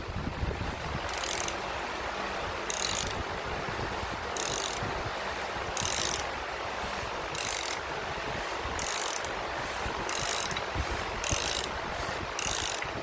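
A steady hiss with a short, high ratcheting or scraping burst about every one and a half seconds, coming a little faster near the end.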